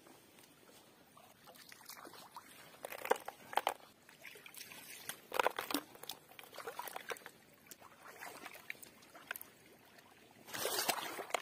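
Shallow pond water splashing and sloshing as hands grope for river snails, with scattered clicks of snail shells knocking in a plastic bucket. A louder rush of water near the end as the bucket is lifted out of the water.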